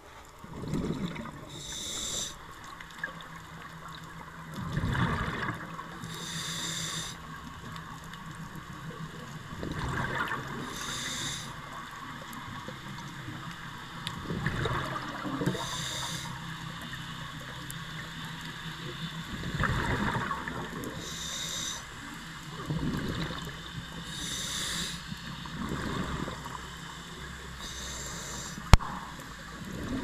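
Scuba diver breathing through a regulator underwater, about one breath every four to five seconds: a short hiss on each inhale and a rumble of exhaust bubbles on each exhale. There is one sharp click near the end.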